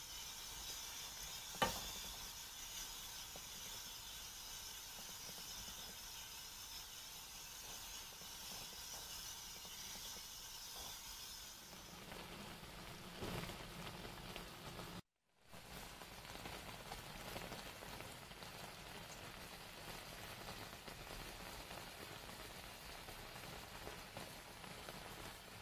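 Thick tteokbokki sauce simmering in a frying pan, a steady bubbling sizzle, with one sharp clink of a metal ladle against the pan about a second and a half in. The sound breaks off for a moment about fifteen seconds in.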